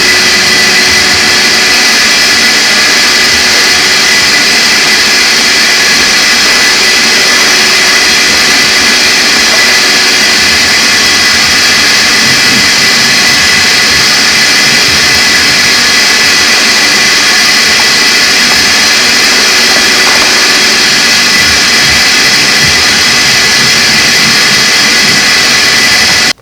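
Vacuum cleaner running steadily with a loud, high whine, sucking up fiberglass dust from a freshly cut hole.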